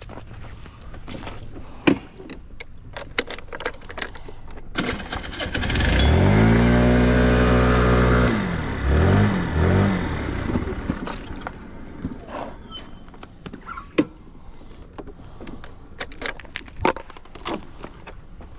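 A small moped engine starts about six seconds in, runs steadily for a couple of seconds, is revved up twice, then dies away. Scattered clicks and handling noises come before and after it.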